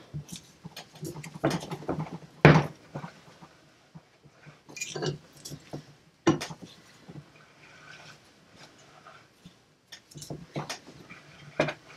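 Metal clinks and knocks from a wrench working the forcing screw of a jaw-type bearing puller on an electric motor's armature shaft as a bearing is pulled off. About seven separate sharp knocks, irregularly spaced a second or more apart.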